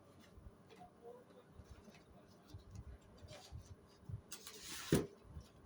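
Faint handling noises of a product box being moved: scattered light taps, then a short rustling hiss about four seconds in that ends in one sharp knock.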